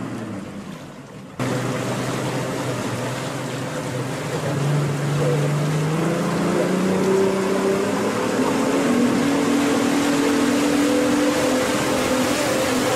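Boat engine running under way over a steady rush of water and wind. The sound cuts in abruptly about a second and a half in, and the engine note rises slowly a few seconds later, then holds steady.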